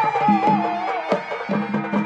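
Folk music accompanying a Chhau dance: drum strokes under a wavering high melody, with held low notes coming in about half a second in.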